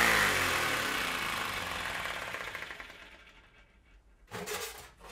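Small 3D-printed ABS compressed-air engine, Air Hogs-style with a spring-loaded ball valve, running with its propeller. Its fast chatter slows and drops in pitch as it runs down, dying away about three and a half seconds in.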